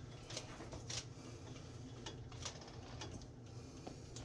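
Faint soft clicks and rustles of a hand pressing wet fish pieces into a bowl of flour to coat them, over a steady low hum.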